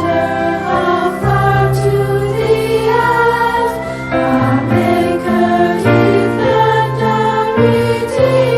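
A children's Christian sing-along song: voices singing in chorus over an instrumental accompaniment with sustained bass notes.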